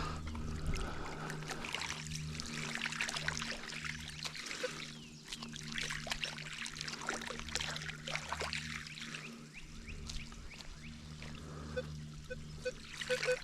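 Water trickling and splashing in shallow water, with many small irregular splashes and a steady low hum beneath.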